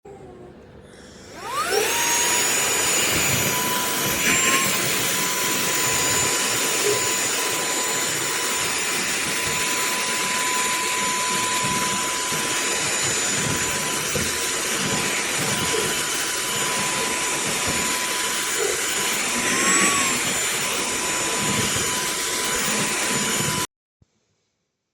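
SERVOMASTER cordless handheld vacuum switched on, its motor winding up to a steady high whine with a rush of airflow. The pitch rises briefly twice, and the motor then cuts off suddenly near the end.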